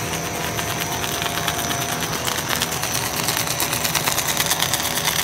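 Snack extruder production line machinery running: a steady motor hum under a dense clatter of rapid clicks that grows louder from about a second in.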